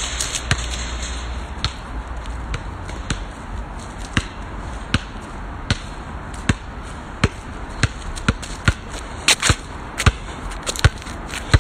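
Basketball being dribbled on an outdoor asphalt court: a steady run of sharp bounces, coming quicker in the last few seconds.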